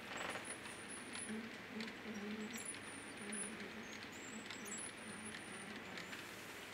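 H0-scale model tank wagons rolling past on layout track: a steady rolling noise with many small clicks of the wheels over the rail joints. Thin high squeaks come and go throughout.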